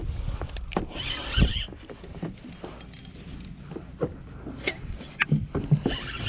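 Irregular knocks, clicks and bumps of rod-and-reel handling against a small fishing boat while a big fish is being fought on the line, over a steady low rumble. A cluster of heavier thumps comes about a second in and again about five seconds in.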